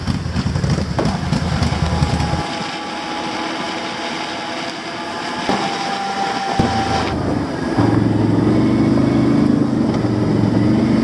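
Automatic ATV engine running as the quad is ridden. The low engine note drops away a couple of seconds in, then comes back louder and holds a steady drone from about eight seconds in.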